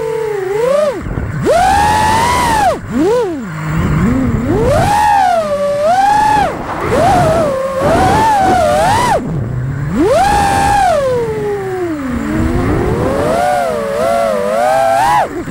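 5-inch FPV quadcopter's brushless motors (T-Motor Pacer V3 2207 1750KV) and props whining, the pitch swooping up and down every second or two as the throttle is punched and chopped through freestyle moves.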